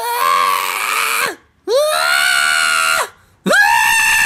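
Cat yowling: three long, loud calls of about a second each, each rising in pitch at the start and dropping away at the end, the last one the highest.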